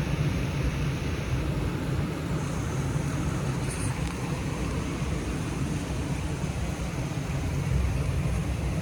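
Steady rushing noise of heavy rain and fast-moving floodwater, deep and even with no breaks.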